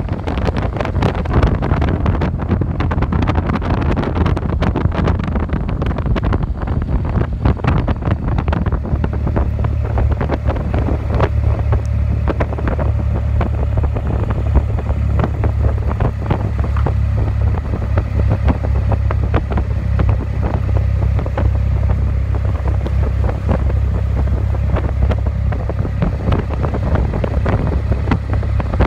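Wind buffeting the microphone of a moving car, over a steady low road and engine rumble that grows heavier about nine seconds in.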